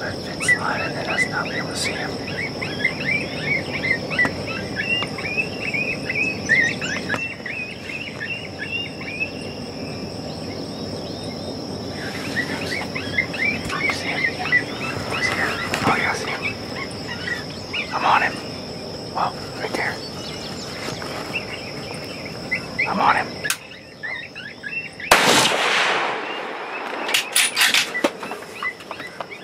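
Summer morning countryside: a steady high drone of insects with many short chirping calls over it. About 25 seconds in, a second-long rustle followed by a few sharp knocks as the camera is handled.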